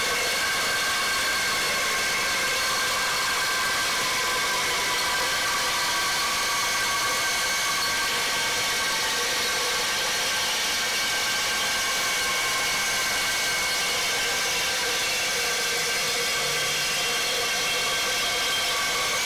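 Milwaukee Sawzall reciprocating saw with a Torch Nitrus Carbide blade cutting through quarter-inch-thick steel pipe. The motor runs at a steady speed with the blade rasping against the metal, a continuous whine that holds even throughout.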